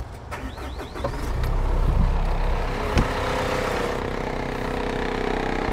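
2013 Isuzu NQR's diesel engine starting about a second in, then settling into a steady idle, with one sharp click about three seconds in.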